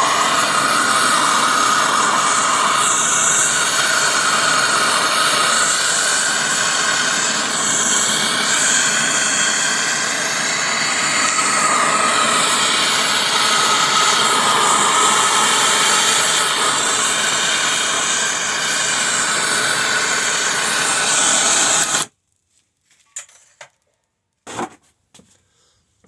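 Gas torch flame running with a steady loud rush, then cut off sharply near the end, leaving a few faint clicks.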